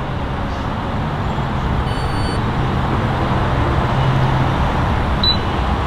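Steady rumble of vehicle engines and traffic at a fuel station, with a short, high electronic beep from the fuel pump's keypad about two seconds in and a brief blip near the end.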